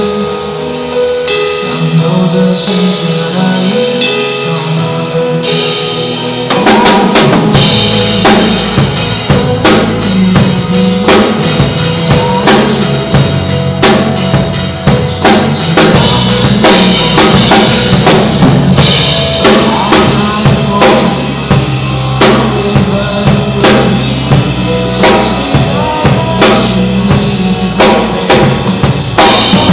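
Acoustic drum kit played live over a Taiwanese pop backing track. The first few seconds are lighter; about six seconds in, the full kit comes in hard with kick, snare and cymbal hits.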